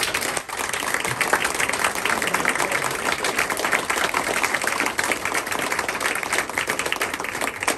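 Small audience applauding: a dense, steady patter of many hands clapping.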